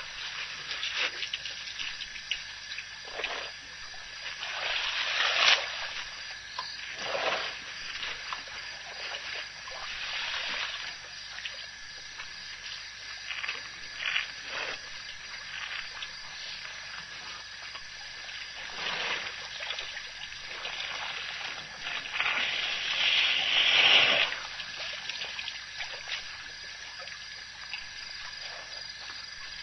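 Elephants drinking and wading at a waterhole: irregular splashing, sloshing and trickling of water, loudest about five seconds in and again about two-thirds of the way through.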